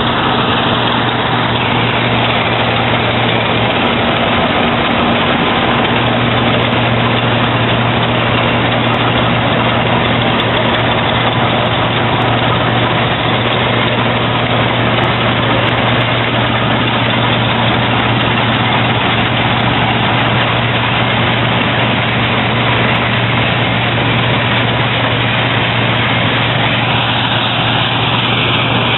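Claas Dominator 80 combine harvester running steadily under load, a constant low engine hum under a dense, even mechanical rush.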